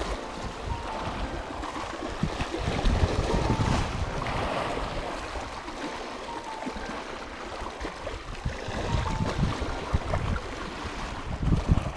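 Small sea waves washing and lapping over the shore rocks, with wind gusting on the microphone.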